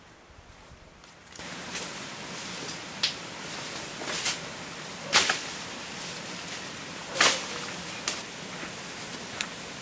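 Leafy tree branches rustling and swishing as someone climbs through them, with several sharp snaps and knocks from feet and hands on the branches.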